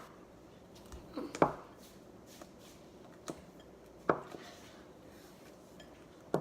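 A few light, sharp knocks and clatters of bowls and utensils being handled and set down, spaced a second or more apart.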